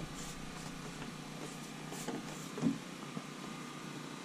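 Faint handling sounds of a hand pressing a PVC shower pan liner and tape flat against a plastic water tank, with a soft bump about two and a half seconds in.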